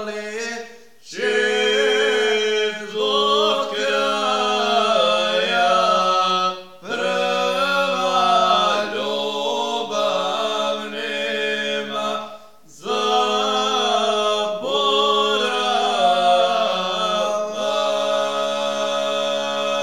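Two men singing a Krajina folk song unaccompanied, in two parts: a wavering, ornamented melody over a steady low note held beneath it. The singing breaks briefly for breath about a second in, near seven seconds and near thirteen seconds.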